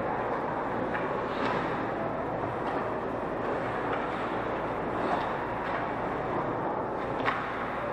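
Ice hockey rink game sound: a steady hum of skates scraping the ice and arena noise, broken by several sharp clacks of sticks and puck. The loudest clack comes near the end.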